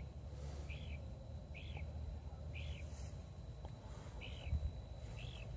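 An animal calling at night: a short, high chirp repeated about once a second, over a faint low outdoor rumble.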